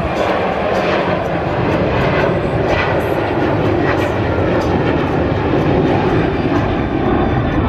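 Airliner engines running loudly at an airport, a steady rushing noise with no clear rise or fall in pitch.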